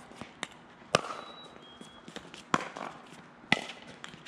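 A pickleball rally: the hard plastic ball popping off paddles and the court in sharp, single pops about a second apart.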